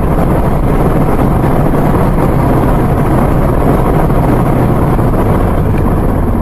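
A car driving at speed: a loud, steady rush of wind and road noise over a low engine hum.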